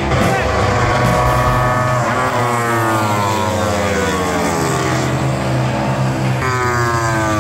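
Several racing motorcycle engines running at high revs, overlapping, each falling smoothly in pitch over a second or two, one after another.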